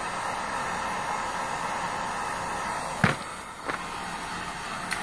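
Handheld heat gun blowing steadily. A sharp clack comes about three seconds in, after which the blowing goes on a little quieter, with a couple of light clicks later.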